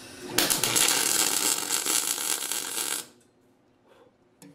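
Electric arc welder tack-welding the steel end cap onto a lawn roller's shaft: the arc crackles loudly for nearly three seconds, then cuts off abruptly. A single click near the end.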